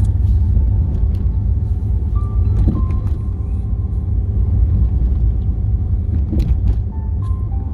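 Car driving along a street, heard from inside the cabin: a loud, steady low rumble of engine and road, with a couple of faint clicks.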